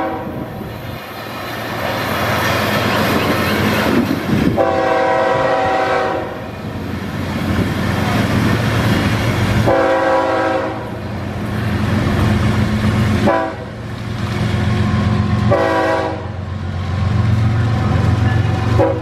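Florida East Coast Railway freight train nearing a grade crossing: the lead GE ES44C4 diesel locomotive blows its horn in repeated blasts, long ones and a short one, the crossing warning signal. Between the blasts the train's diesel engines and wheels rumble, louder near the end as it reaches the crossing.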